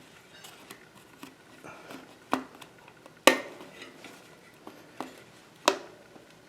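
Clicks and knocks of a plastic spoke protector being fitted onto a bicycle's rear hub, with the removed cassette parts being handled: four sharp knocks, the loudest about three seconds in, with light ticks between.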